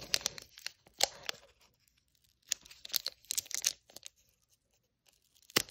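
Foil trading-card booster pack wrapper being torn open by hand: short crackling tears in several bursts with pauses between, and a sharp crack near the end. The pack is stubborn to open.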